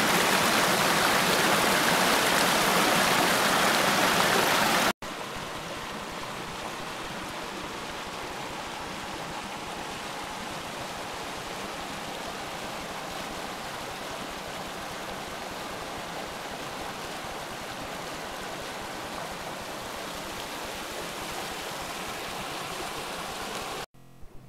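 Fell stream rushing over rocks in rapids, a loud steady rush of white water. About five seconds in it drops suddenly to a quieter, steady rush of the same stream.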